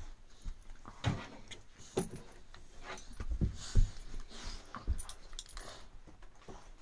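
Dogs play-wrestling on carpet: scuffling, irregular thumps of bodies and paws, and collar tags jingling, with the loudest thump a little before four seconds in.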